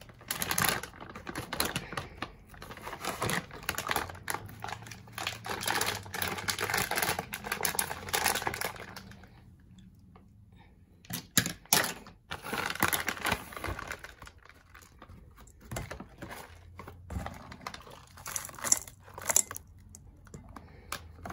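Crackling, scratchy handling noise in rapid bursts as hard cocoa butter is worked out of its container, stopping for about two seconds midway.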